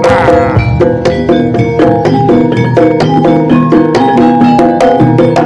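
East Javanese jaranan gamelan music played live: a quick, stepping melody of struck metal-keyed notes over kendang drums, loud and continuous.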